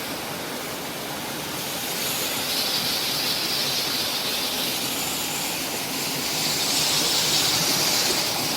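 Steady rush of a waterfall, a hiss of falling water that swells a little a couple of seconds in and again near the end.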